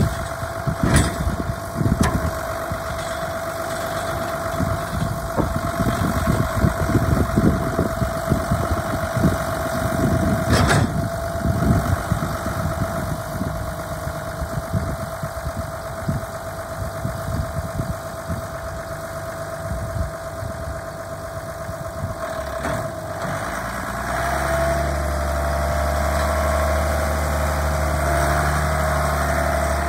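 John Deere 7320 tractor's six-cylinder diesel idling while the 740 front loader is lowered, with a sharp clunk about ten seconds in. About six seconds before the end the engine note deepens and grows louder and steadier as the tractor pulls away.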